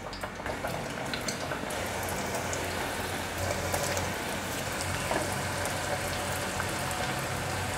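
Mashed-potato patties deep-frying in hot oil in a pot: a steady sizzle and bubbling with many fine crackles.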